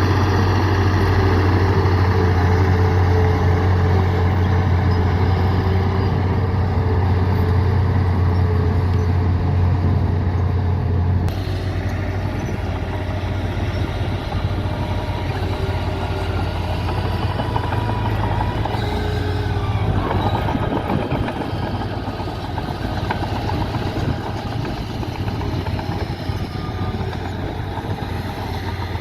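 Heavy diesel construction machinery running steadily with a deep engine drone. About eleven seconds in, the sound changes abruptly and the drone becomes weaker and rougher.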